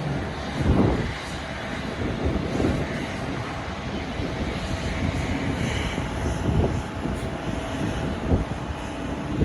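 Jet airliner engines running, a steady broad roar at an airport, with wind buffeting the microphone in low thumps now and then, most strongly about a second in.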